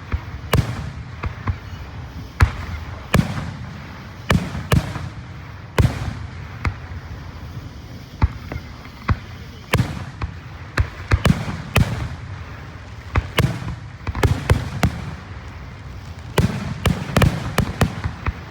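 Fireworks going off in a rapid, irregular barrage: dozens of sharp bangs, some in quick clusters, over a steady low rumble.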